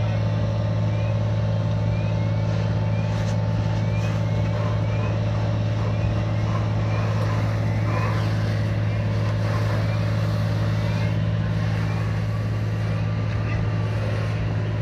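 Fire engine's diesel engine running steadily at one even pitch, driving the water pump for the hose lines. Faint short chirps repeat about twice a second in the background during the first half.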